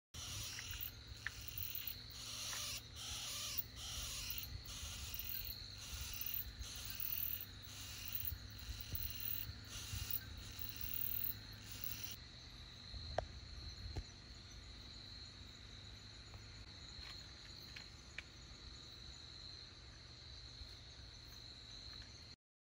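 Night insect chorus: crickets keep up a steady high trill, and a louder pulsing call repeats somewhat under twice a second before stopping about halfway. A few faint clicks sound later on.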